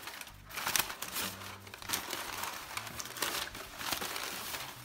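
Crumpled newspaper packing crinkling and rustling in irregular handfuls as it is pulled out of a cardboard shipping box.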